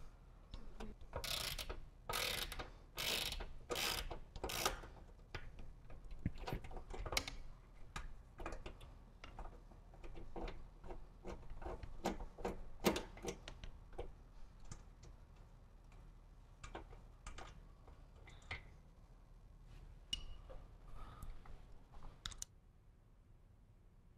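Ratchet wrench with a half-inch socket clicking as it backs out gas tank mounting bolts. A quick run of ratcheting strokes comes in the first few seconds, then fainter scattered clicks and rattles of handled parts, falling quiet near the end.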